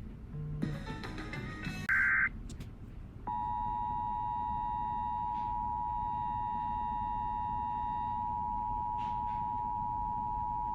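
Emergency Alert System audio on weather radio: a short digital data burst of the SAME code about two seconds in, then the steady two-tone EAS attention signal from about three seconds in, sounding the start of a new warning.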